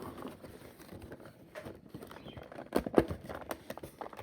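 Plastic action-figure packaging being handled: irregular clicks, taps and rustles, with a cluster of sharper clicks about three seconds in.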